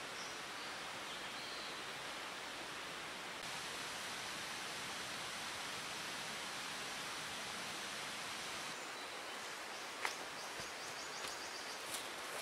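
Steady outdoor background hiss, a rushing noise with no clear source, with a few faint high chirps. About two-thirds of the way through, a faint rapid high-pitched repeating trill and a couple of small clicks come in.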